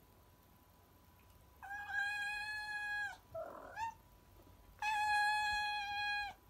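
Domestic cat meowing: two long, drawn-out meows held at a steady pitch, each about a second and a half long, with a short breathy call and a brief rising chirp between them.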